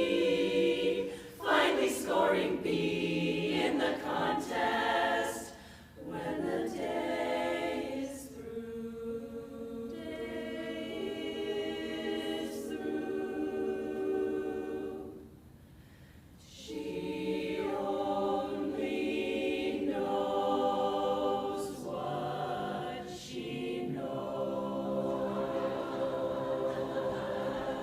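An a cappella chorus singing long held chords. There is a brief break about halfway through before the singing resumes.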